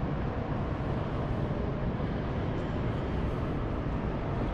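Steady low background rumble and hiss of a large indoor station hall, with no distinct events standing out.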